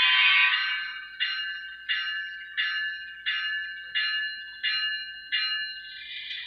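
Model locomotive's sound-system bell ringing, a strike about every two-thirds of a second, each ringing out before the next. Near the end the strikes blur into a steadier ringing.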